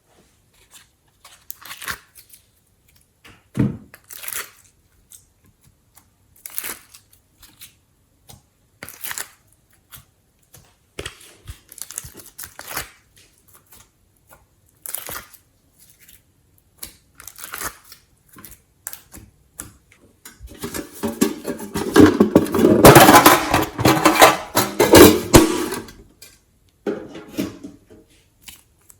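Hands working glossy slime and the things being mixed into it: scattered short crinkles and clicks, then a few seconds of loud, dense crackling and squishing past the two-thirds mark.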